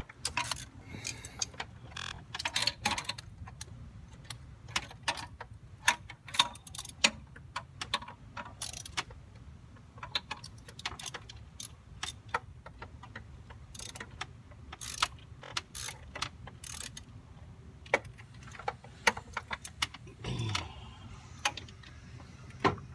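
Hand ratchet clicking and metal tools clinking in irregular bursts as the thermostat housing bolts are run in, over a steady low hum.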